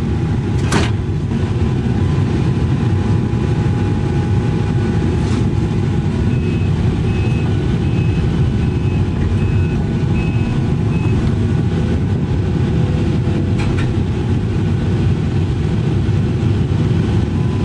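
Case excavator's diesel engine and hydraulics running steadily, heard from inside the cab while the boom holds a heavy boulder. For a few seconds in the middle a faint high beep repeats about eight times, like a machine's travel or backup alarm.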